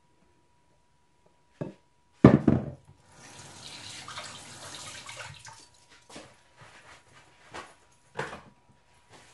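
Kitchen handling noises: a knock, then a loud clatter about two seconds in, then a few seconds of water running from a tap, followed by a few light knocks.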